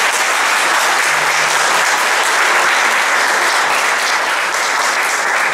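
Audience applauding steadily: a round of welcoming applause from a large crowd.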